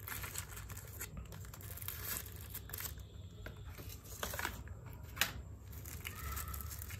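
Paperboard packaging being opened and its inner tray slid out, followed by a plastic bag crinkling in the hands; irregular rustling with a brief sharp click about five seconds in.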